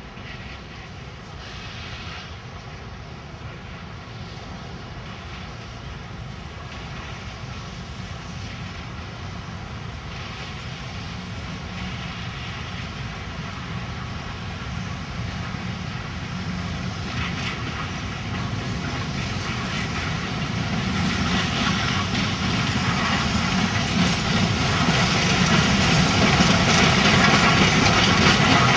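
Steam-hauled freight train, a Chinese 2-8-2 steam locomotive with a long rake of open wagons, approaching and growing steadily louder as it draws near.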